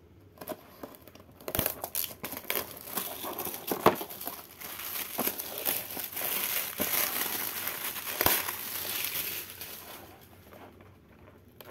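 Clear plastic wrapping crinkling and tearing as it is pulled off a cardboard toy-car kit box, with scattered sharp clicks. It starts about a second and a half in and dies away near the end.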